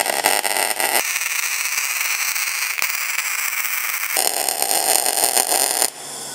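CO2-shielded MIG welding arc running 0.9 mm solid steel wire on 2 mm steel square tube: a steady crackle and sizzle with spatter, which stops just before the end.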